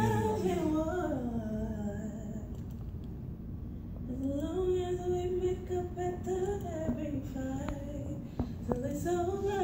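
A woman singing slowly in long, drawn-out notes without clear words: one gliding downward at the start, a steady held note in the middle, and another rising in near the end.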